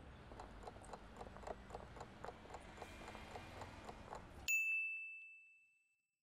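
A countdown timer sound effect: faint, rapid, even ticking, then a single bright ding about four and a half seconds in that rings out over about a second, signalling that time is up.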